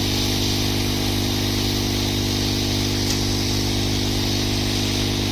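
A small electric motor or blower running steadily: a constant hum with an even hiss of moving air, unchanging throughout.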